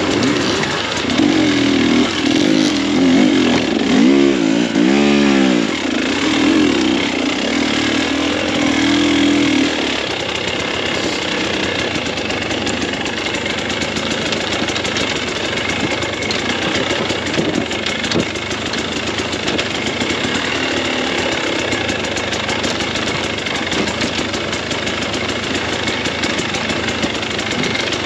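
KTM 300 XC-W two-stroke dirt bike engine under riding load. It revs up and down several times in the first ten seconds or so, then runs more steadily and a little quieter.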